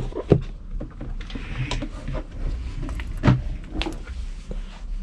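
A cardboard shipping box being handled and set down on a desk: scraping and rustling with a few sharp knocks, the loudest just after the start and a little past three seconds.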